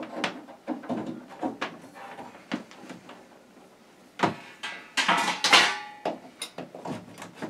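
Handling noises as a power cord is plugged in and moved about: scattered clicks and knocks, a sharper knock about four seconds in, then a second or so of scraping rustle.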